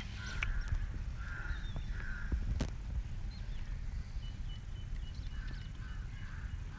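Crows cawing several times in short calls, over a steady low rumble, with one sharp click about two and a half seconds in.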